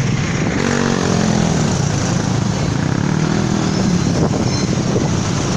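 Steady engine and road rumble heard from inside a moving bus.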